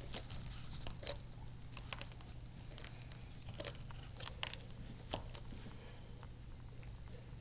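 Great Pyrenees gnawing a bone, with sharp irregular clicks and crunches of teeth on bone about once a second.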